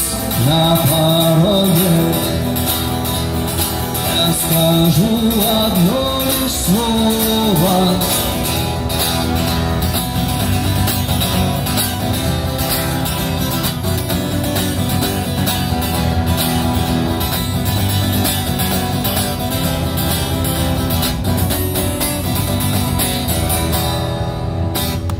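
A song with guitar accompaniment: a sung line for the first several seconds, then the instruments play on without a voice, stopping just before the end.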